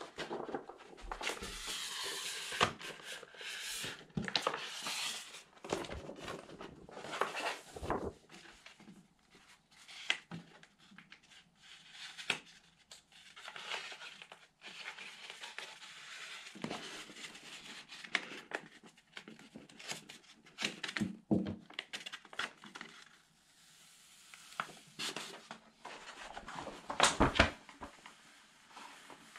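Large wall-art sticker sheet and its paper backing rustling and crinkling as they are handled and peeled apart, in irregular bursts with sharp crackles; the loudest crackles come near the end.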